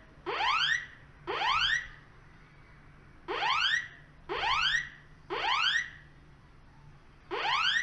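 Automatic fire alarm sounding its rising sweep tone, set off as an alarm test. Each sweep lasts about half a second, and they come about a second apart in sets of three, with a pause of about a second and a half between sets.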